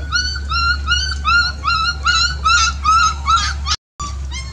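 Puppy crying in a quick series of short high-pitched yelps, about four a second, each rising a little in pitch. The yelping breaks off abruptly near the end.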